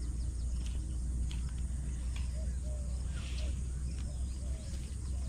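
Open-air ambience: a steady low rumble with faint, scattered bird chirps and a few light clicks.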